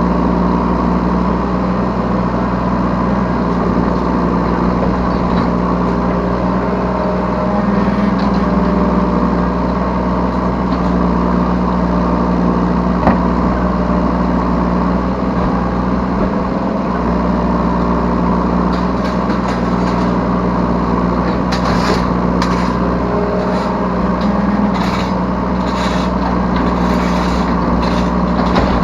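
Yanmar B3 Sigma 3-tonne mini excavator's diesel engine running steadily under working load, heard from the operator's seat. In the last third, a run of short clatters and scrapes.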